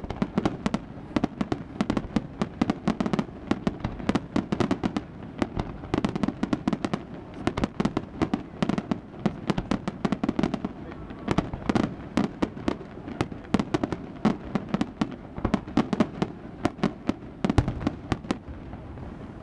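Pyrotechnic fireworks show: a dense, unbroken barrage of sharp bangs and cracks, many a second and irregular, over a low rumble.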